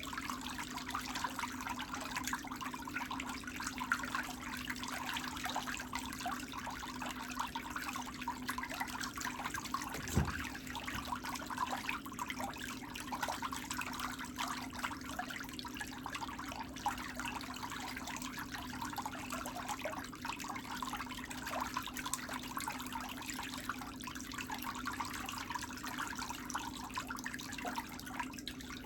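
Water trickling steadily, with a low steady hum underneath and one soft thump about ten seconds in.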